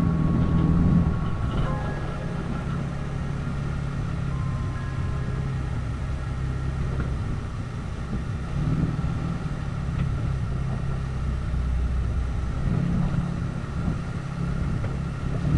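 Jeep Wrangler's 3.6-litre V6 running at low trail speed, a steady low drone mixed with the rumble of tyres and suspension over a rocky dirt track.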